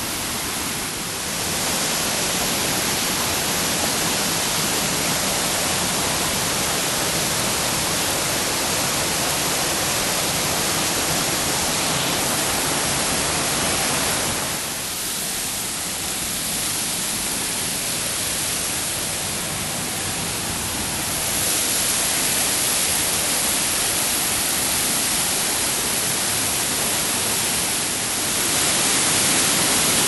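Whitewater mountain stream rushing over rocks, a steady noisy rush of water that fades a little about halfway through and grows louder near the end.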